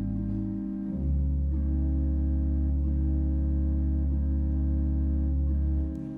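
Organ holding sustained chords, with a deep bass note that comes in about a second in and holds until just before the end.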